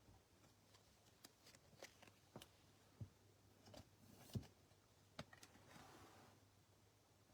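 Faint, irregular clicks and light rustling of trading cards being handled and flipped through, with about ten soft taps and the sharpest one about four and a half seconds in.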